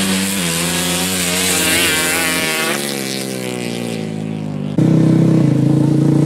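Drag-racing ATV engines running hard down a dirt strip, their pitch wavering, dropping sharply about two and a half seconds in, then fading. About five seconds in, a louder, steady engine note of a close-by drag quad cuts in.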